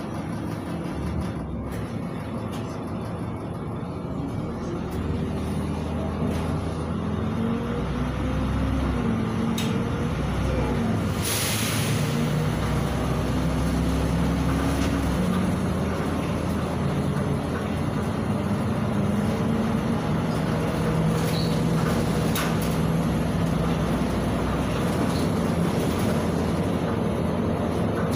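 Inside a LiAZ 5292.71 city bus under way: its MAN E0836 natural-gas inline-six engine and automatic gearbox running, the engine's pitch climbing and shifting several times in the first ten seconds, then holding steady as it cruises, over steady road noise. A brief hiss of compressed air about eleven seconds in.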